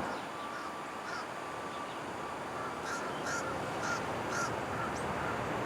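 A bird calling: a quick run of short, repeated calls in the second half, over steady outdoor background noise.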